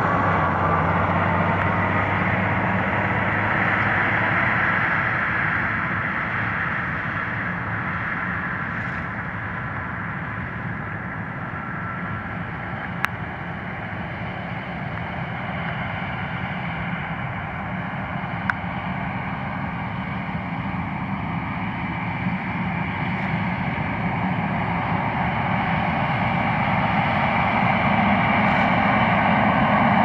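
John Deere S690 combine harvesting corn, its engine and threshing machinery running steadily, growing louder near the end as it comes close. Two brief sharp clicks are heard midway.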